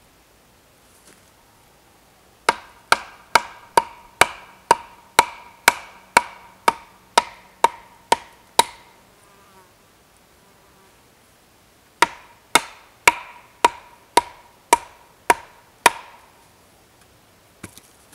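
A wooden post being hammered in with sharp, ringing wooden knocks, about two blows a second: a run of about fourteen blows, a pause of a few seconds, then about eight more.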